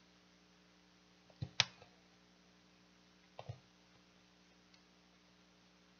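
Light taps and clicks as folded cardstock signatures are handled and set into an open phone book, in two short clusters about two seconds apart, over a faint steady room hum.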